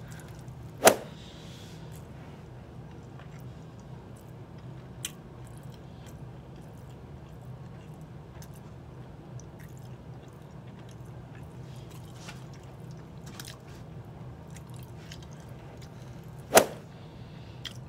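A person eating, chewing food with small scattered clicks over a steady low hum. Two sharp knocks, about a second in and near the end, are the loudest sounds.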